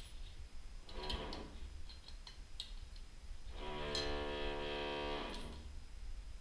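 Quiet background music of long held notes at a steady pitch, a short one about a second in and a longer one in the middle, with a few sharp clicks in between.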